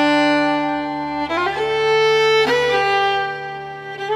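Background music: a slow violin melody of long held notes, sliding to a new note every second or so.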